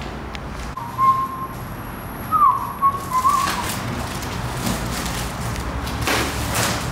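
A person whistling a few short notes, one of them sliding up in pitch and back down. Two brief noisy sounds follow later.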